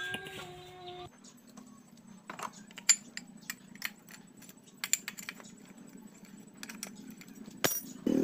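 Scattered light metallic clicks and clinks of a dismantled motorcycle engine's parts being handled, over a faint steady low hum.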